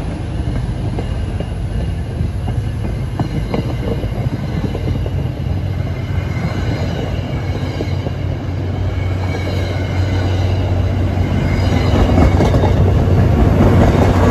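MBTA commuter rail train rolling past on the rails, its coaches' wheels rumbling and clicking over the track. The noise swells near the end as the train's trailing diesel locomotive passes with its engine running.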